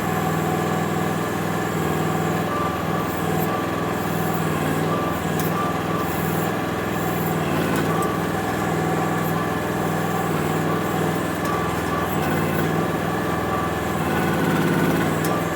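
Mini excavator's engine running steadily under working throttle, with a few faint clicks.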